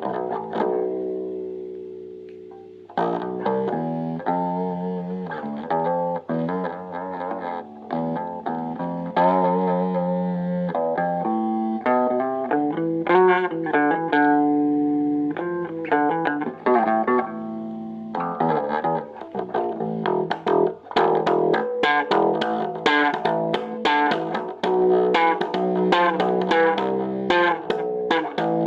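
Boston electric bass guitar played through a cheap combo amp in a solo improvisation. A first note rings and fades over about three seconds, then a line of single notes follows, some with vibrato. From about eighteen seconds in the playing turns faster, with sharp, clicky attacks.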